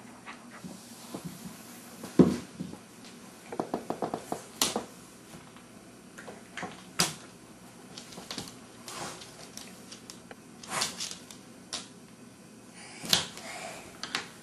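Irregular clicks and knocks on a hardwood floor: a dog's claws scrabbling and plastic toys clattering as a dog and a baby tussle over a toy. The loudest knock comes about two seconds in, with a quick run of clicks around four seconds.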